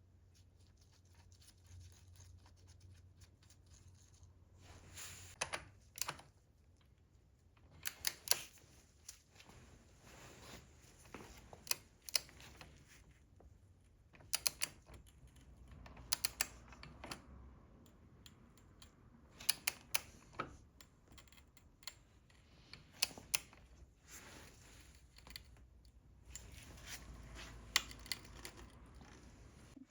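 Clusters of sharp clicks and light metallic taps every two to three seconds, as hand tools and small engine parts are handled during assembly.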